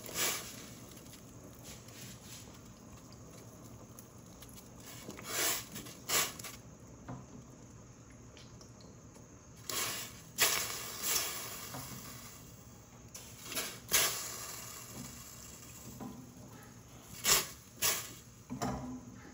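Short splashes and knocks, irregularly about a dozen times, as whole small fish are dropped one by one into a stainless steel pot of boiling water, with the faint bubbling of the broth between.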